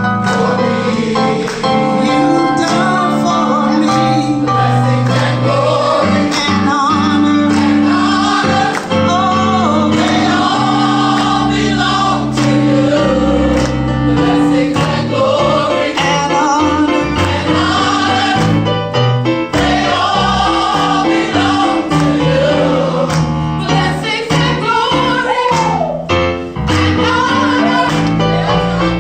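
Gospel singing by a group of voices in harmony, with bass and band accompaniment.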